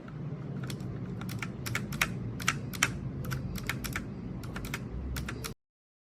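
Typing on a Royal Kludge RK61 mechanical keyboard: an uneven, quick run of key clicks over a steady low hum, cutting off suddenly about five and a half seconds in.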